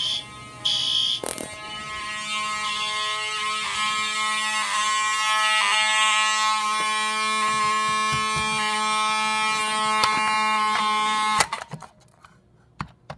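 Fire alarm horns sounding after a manual pull station is pulled: a steady, buzzy horn tone, with a pulsing high tone in the first second, that cuts off suddenly about eleven seconds in, followed by a few clicks. One horn is partly muffled by tape over it.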